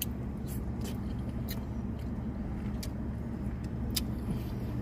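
Steady low hum of a car idling, heard from inside the cabin, with a few short clicks from eating ice cream with a plastic spoon out of a plastic cup.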